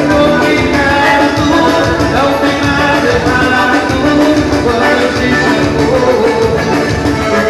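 Loud live band playing Latin American dance music with a steady, driving beat.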